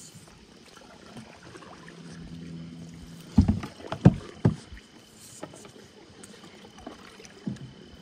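A canoe being paddled across a river: quiet water noise around the paddle and hull, broken by a quick cluster of loud knocks on the canoe about three and a half to four and a half seconds in, and one lighter knock near the end.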